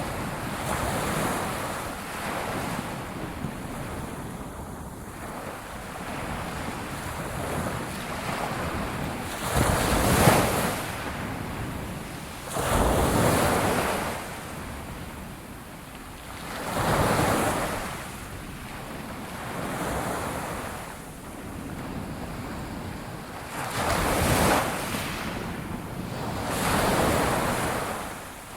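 Ocean waves breaking and washing on the shore, one surge every three to four seconds over a steady rush of surf and wind; the loudest break comes about ten seconds in.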